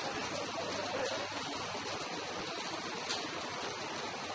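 Steady rain falling, an even hiss that holds without a break.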